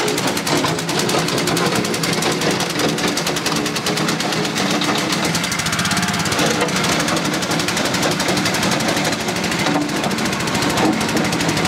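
Engine of a small wheeled mini loader running steadily with a rapid, even beat as the machine drives forward over gravel with its bucket lowered.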